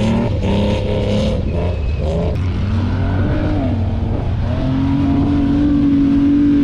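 Off-road vehicle's engine running hard in the dunes, revving up and down. Its pitch climbs midway, then holds high and steady.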